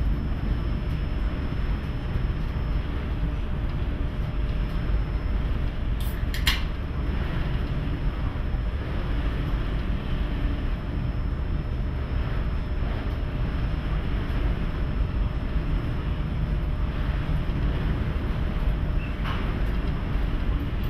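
Steady low rumble of the Great Lakes freighter MV Joseph L. Block under way in heavy seas, engine and hull vibration with a rushing noise. Two sharp clicking rattles come about six seconds in and another a little before the end.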